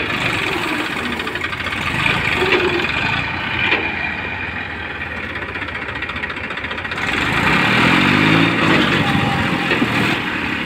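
Massey Ferguson 241 DI tractor's three-cylinder diesel engine running, revving up from about seven and a half to nine and a half seconds in under load as the tractor, rear wheel sunk in a ditch, tries to pull itself out.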